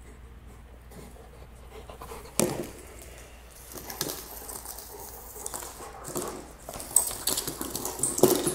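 K9 Cruiser hard plastic sliding dog toy being pushed about by a golden retriever's paws and nose, scraping and clattering on a tile floor. A single knock comes about two and a half seconds in, then a busy run of clicks and scrapes.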